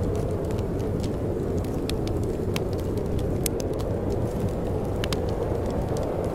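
Steady wind blowing with a low rumble, over a wood fire crackling with scattered small sharp pops.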